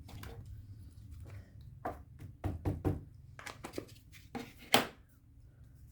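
Irregular light taps and knocks of craft supplies being handled on a tabletop, likely an ink pad and acrylic stamp block as a stamp is inked, with one sharper knock near the end.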